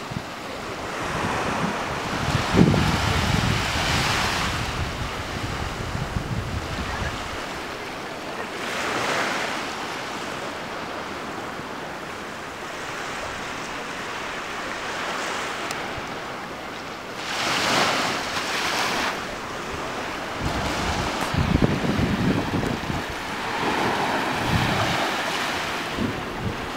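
Small waves breaking and washing up a sandy beach, the surf swelling and fading several times, with wind gusting against the microphone.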